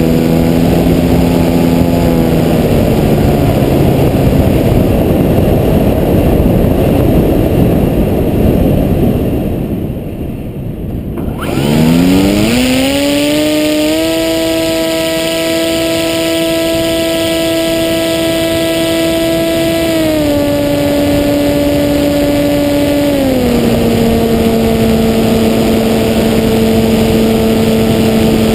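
Brushless electric motor and propeller of an FPV flying wing, heard from a camera on board. The motor whine drops away in the first few seconds, leaving wind noise. About a third of the way in it spools back up with a sharply rising whine, then holds steady, steps down in pitch twice, and falls off again at the very end as the throttle is eased.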